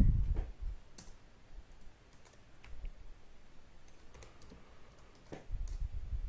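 Computer keyboard keys clicking in scattered, irregular presses.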